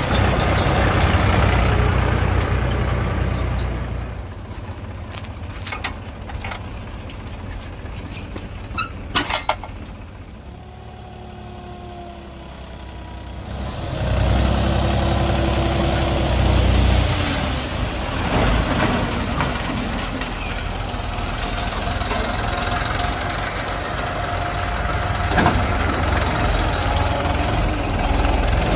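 Mahindra 275 DI tractor's diesel engine running, loud at first and easing off after about four seconds, with a few sharp knocks near nine seconds. It picks up again about halfway through and stays loud.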